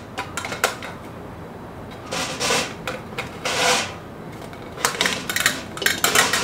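Metal parts of a Weber Jumbo Joe charcoal grill clinking and tapping against its thin metal ash pan during hand assembly: scattered sharp clinks, with a couple of longer scraping sounds in the middle.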